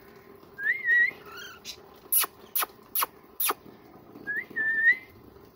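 Lutino cockatiel whistling two short phrases, each rising and then wavering. Between them come four sharp clicks.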